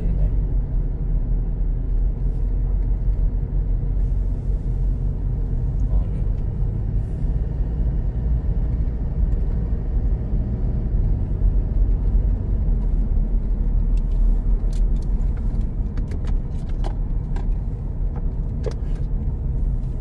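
Steady low rumble of a car driving along, engine and road noise heard from inside the cabin, with a few light clicks in the last few seconds.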